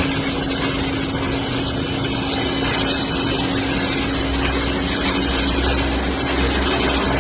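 Pressure washer running and spraying: a steady motor hum under a continuous hiss of water from the lance.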